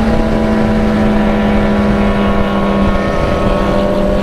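Yamaha XJ6 inline-four motorcycle engine running at steady revs while riding, holding one pitch, with wind rumble on the microphone underneath.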